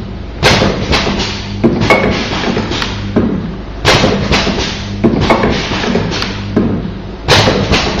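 Electrical connector automatic assembly machine running through its cycle: a loud knock about every three and a half seconds, each followed by a quick run of smaller clicks and taps, over a steady low hum.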